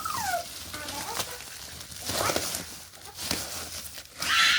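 A young child's voice: a short falling whine at the start, followed by brief rustling noises and a few sharp clicks.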